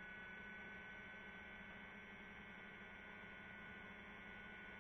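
Near silence: a faint steady hum of several held tones.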